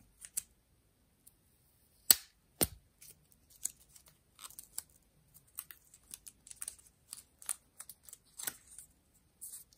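Protective plastic film being peeled off an Apple Watch SE case: a run of small crinkles and clicks, with two sharp clicks about two seconds in, half a second apart.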